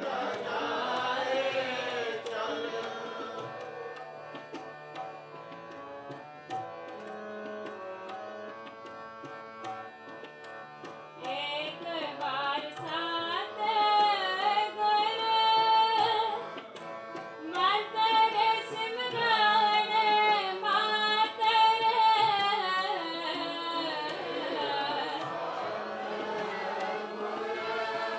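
Sikh kirtan: a woman singing a hymn to a Yamuna harmonium, with tabla accompaniment. The voice and harmonium start out softer, and from about eleven seconds in the singing grows louder and fuller over steady tabla strokes.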